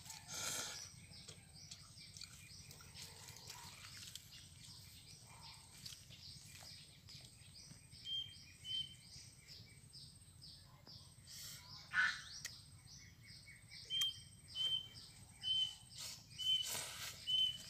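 Outdoor bird calls, with a short high whistled note repeated every second or less in two runs, about 8 s in and again from about 14 s, over constant small chirps. A few short slurps of noodles being sucked up from chopsticks stand out, the loudest about 12 s in and near the end.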